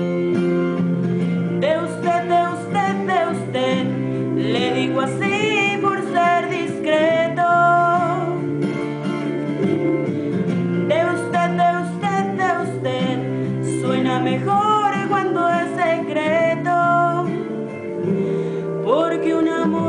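A woman singing a melody over acoustic guitar accompaniment. The guitar plays alone at first, the voice comes in about two seconds in, drops out briefly near the end and comes back.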